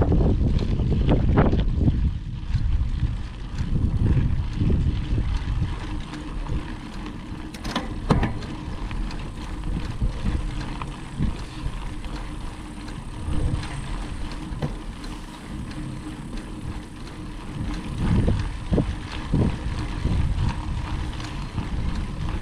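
Mountain bike rolling over a dirt trail, with wind rushing over the microphone and the bike rattling, plus scattered sharp knocks from bumps, one standing out about eight seconds in.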